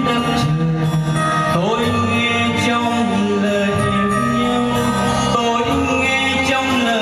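A man singing a song into a handheld microphone over instrumental accompaniment.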